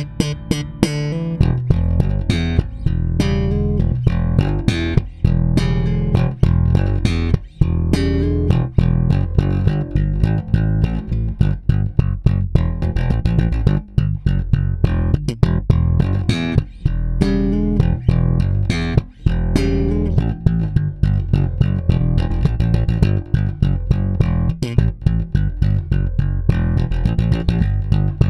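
Squier Jaguar electric bass playing a busy line of quick plucked notes in an even rhythm, with sharp, bright attacks. It starts suddenly.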